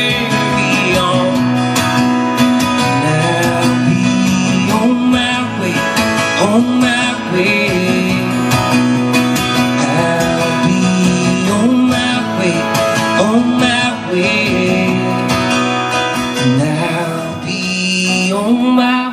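Two acoustic guitars strummed together in an instrumental passage of a country-style song, played live.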